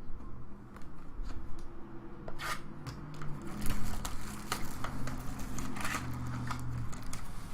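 Trading cards being handled and slid against one another as a pack is flipped through, making short swishes and clicks.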